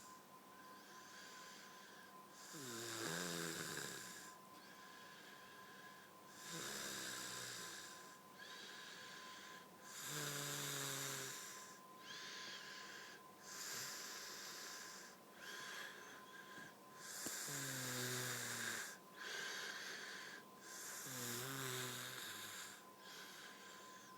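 A woman with a head cold snoring in her sleep: about six loud snores, one every three to four seconds, several with a low rattling flutter, and quieter breaths between them. A faint high whistle comes in with one breath about halfway through.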